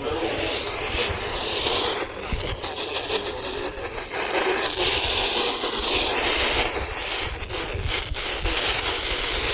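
Steady hiss of FM radio static from a receiver tuned to 90.1 FM.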